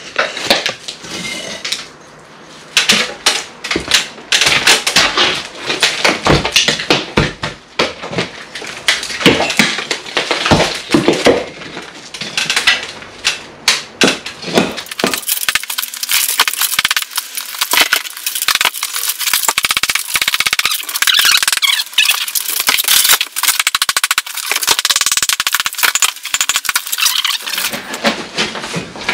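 Plaster and blockwork being broken out of a wall: a dense, irregular run of knocks, cracks and clattering debris, thinner and higher-pitched in the second half.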